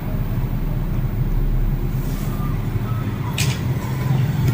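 A steady low hum, with a short hiss about three and a half seconds in.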